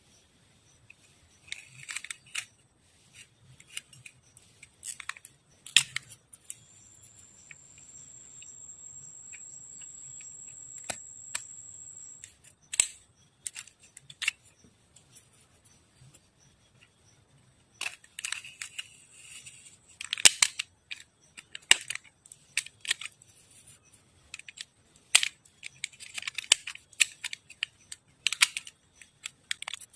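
Irregular sharp clicks, snips and short scrapes of hand tools working a small piece of float material. A thin, steady high whine runs for about six seconds in the first half.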